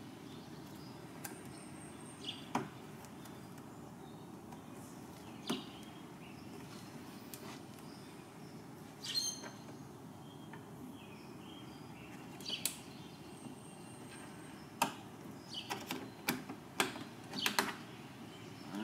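Plastic trim-removal tool prying at the push-in clips of a 2018 Camaro SS's trunk trim cover: scattered light clicks and scrapes that come more often near the end, over a faint steady hiss.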